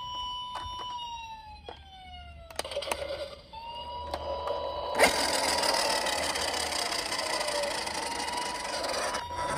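Electronic toy sirens of emergency-vehicle minicars wailing, overlapping tones that hold steady and then slide down in pitch, with sharp clicks of the plastic toys. About halfway through a loud click is followed by a steady rattling hiss under the sirens.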